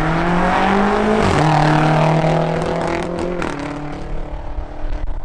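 A BMW X5M's twin-turbo V8 and a BMW M240i xDrive's turbocharged straight-six launching and accelerating hard. The engine note climbs, drops sharply at an upshift about a second and a half in and again past three seconds, then fades as the cars pull away.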